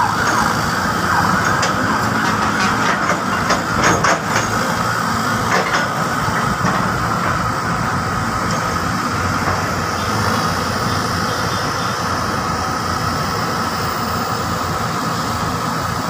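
Excavators working a sand pile: diesel engines running steadily under a constant high hydraulic whine, with a few metallic knocks in the first several seconds.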